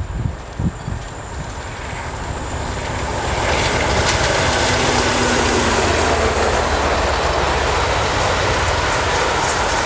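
A train approaching and running past, its noise swelling over the first few seconds to a steady loud rumble with rail clatter.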